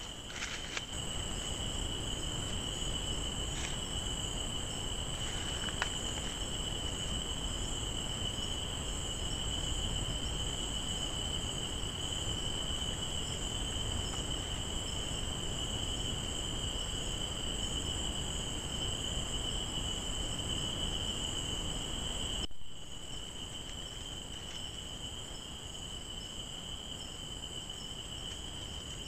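Night-time forest insect chorus: a steady high-pitched trill from crickets, over low background noise that drops away about three-quarters of the way through. A few faint ticks can be heard early on.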